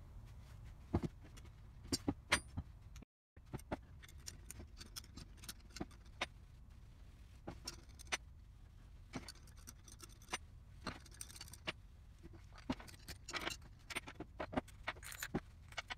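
Scattered light metallic clicks and clinks as a drill press V-belt pulley assembly is handled and taken apart, with small screws and nuts set down on a wooden bench.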